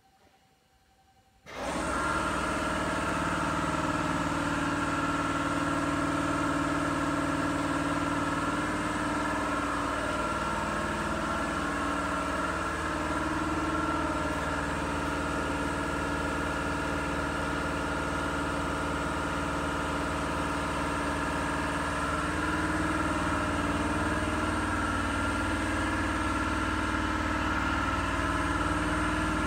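NikMann automatic edgebanding machine running: a steady mechanical drone with several held tones over a low rumble. It comes on abruptly about a second and a half in and then holds even, with only slight wavering in pitch.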